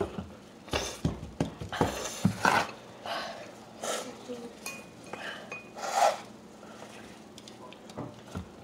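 Several people slurping spicy instant noodles in short noisy bursts, with sniffs and quick breaths, and chopsticks clinking against ceramic bowls.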